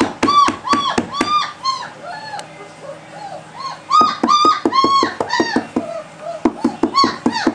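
Three-week-old German Shepherd puppies whining in quick runs of short, high rise-and-fall cries, about three or four a second, with softer, lower whimpers between the runs.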